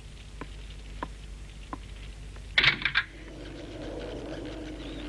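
Wooden stirring stick knocking against a metal cauldron of milk, a short ringing tick about every 0.7 s as it is stirred. Just past halfway comes a loud clatter of three quick strikes, then a low, wavering tone sets in and holds.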